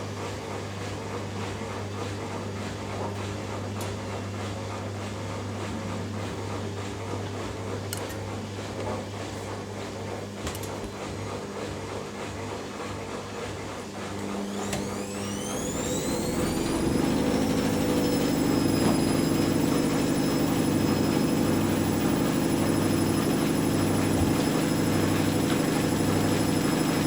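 Two washing machines, a Hoover Dynamic Next DXA610IW3 and a Whirlpool AWM1850, on their spin cycles, humming steadily with a few faint clicks. About halfway through, a rising motor whine builds as a drum speeds up into its fast spin, then holds as a louder steady whine.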